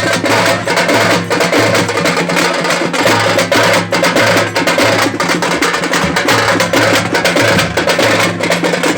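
Tamate, the Karnataka frame drum, played in a fast, dense rhythm of rapid strokes that runs without a break.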